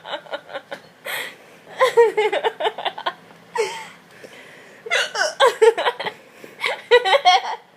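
A girl laughing hysterically and hiccuping at the same time, in several short bouts of rapid laughter broken by hiccups, with brief pauses between.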